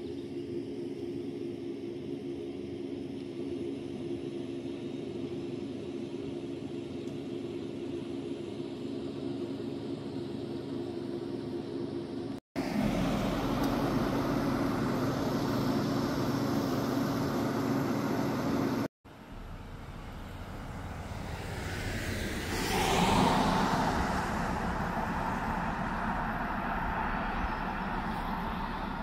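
Outdoor ambience in three cut-together parts: first a steady low hum, then a steady rushing noise. In the last part a car comes along the road, swelling to its loudest about two-thirds of the way through as it passes, then fading.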